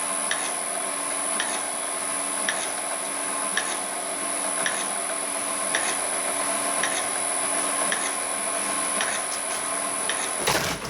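Home-built electric can crusher and wire cutter running steadily while it wears in, with a hum and a light tick about once a second. Near the end it cuts off suddenly as its power cord is pulled out.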